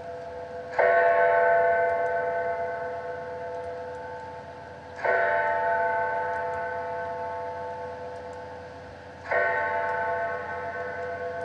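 A large bell tolling: three strokes about four seconds apart, each ringing on and fading slowly before the next.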